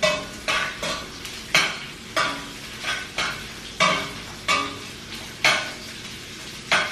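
A metal utensil scrapes and knocks against a metal skillet as sausage pieces are stirred and turned, about ten irregular strokes, each with a short ring from the pan. A faint sizzle of frying sits under the strokes.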